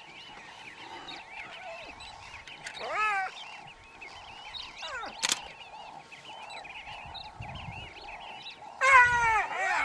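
Brown hyenas fighting, giving high squealing calls that glide in pitch: one rises about three seconds in, one falls about five seconds in, and the loudest, a long falling squeal, comes near the end.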